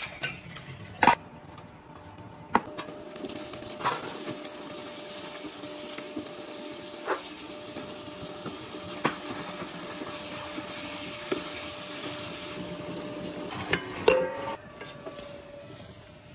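Stainless steel bowls and a metal spatula clinking sharply against a wok every second or few, over the sizzle of sliced vegetables and chicken stir-frying. A steady hum from the induction cooker runs under it and stops near the end.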